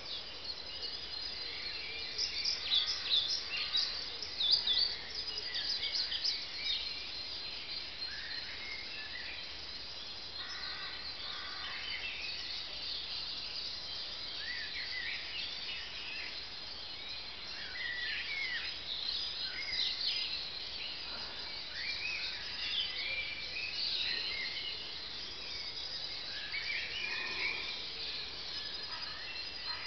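Dawn chorus of several songbirds singing at once: many overlapping high whistles, trills and chirps from different birds, busiest in the first few seconds and again about two thirds of the way through.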